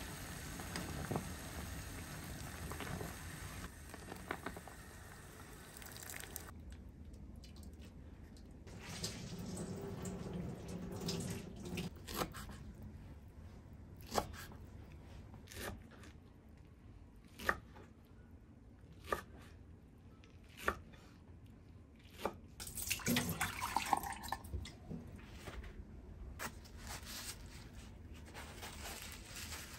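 Kitchen prep sounds. A steady watery hiss runs for about the first six seconds. Then come single sharp knife strokes through boiled greens onto a wooden cutting board, roughly one every second or two, with a short burst of rustling about three-quarters of the way through.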